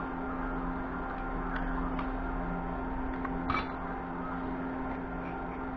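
A steady low mechanical hum, with a few light clicks and one sharper click about three and a half seconds in.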